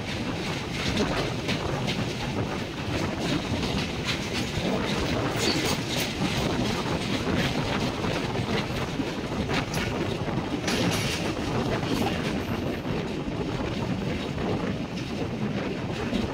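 Train running along the track: a steady rumble with wheels clattering over rail joints throughout.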